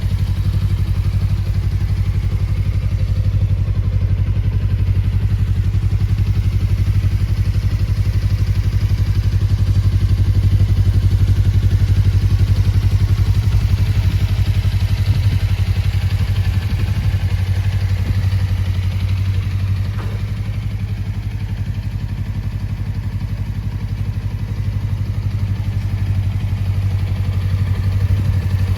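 Suzuki V-Strom 250's parallel-twin engine idling steadily through a Yoshimura aftermarket silencer.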